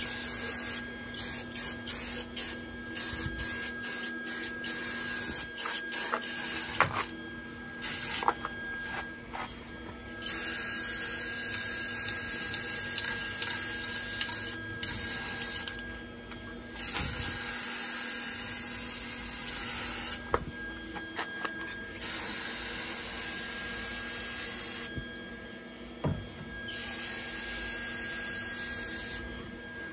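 Aerosol spray paint can hissing in repeated bursts of a few seconds each, with short pauses between them and a few quick taps near the start. A steady faint hum runs underneath.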